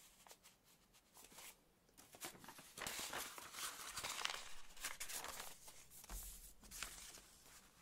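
Sheets of paper being handled and shuffled as folded journal pages are rearranged: soft rustling and light crinkling, quiet at first and louder from about three seconds in.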